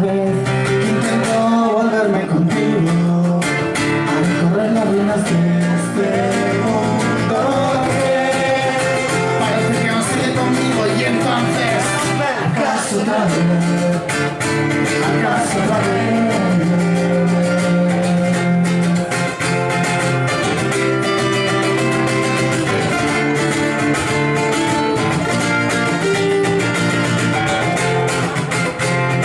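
Nylon-string acoustic guitar strummed steadily in a live performance, with a man's voice singing along in parts.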